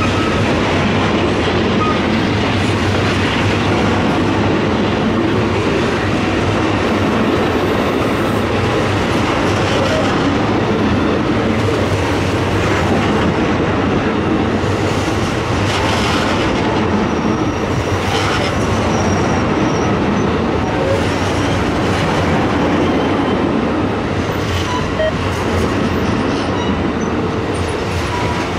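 Amtrak Auto Train Superliner bilevel passenger cars rolling past close by: a steady, loud rumble and rattle of steel wheels on the rails. A brief faint high squeal comes about two-thirds of the way through.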